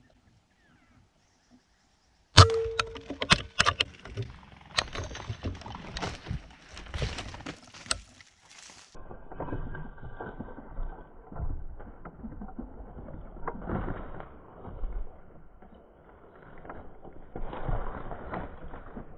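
A sudden loud bang about two seconds in, followed by several seconds of sharp snapping and crackling. Then steady footsteps crunching through dry brush and forest litter.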